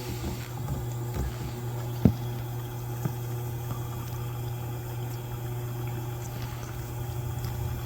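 Whirlpool dishwasher running, with a steady low hum from its pump motor and water moving inside the tub. A single sharp click about two seconds in, and a fainter one a second later.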